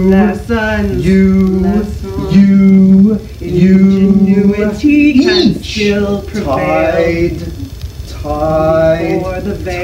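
Sound poetry chanted rather than spoken: a low man's voice holds a string of long sung notes of about a second each, with higher-pitched vocal tones and short pitch swoops between them.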